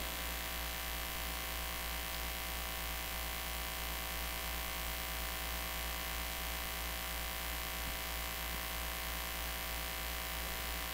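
Steady electrical mains hum from a PA sound system, a low hum with a faint buzz above it, with no music or voice coming through.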